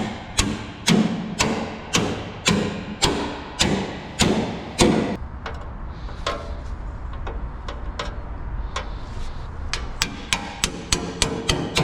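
Hammer blows on metal, about two a second, each with a short ring, for roughly five seconds. Then lighter, irregular taps and knocks follow, quickening near the end.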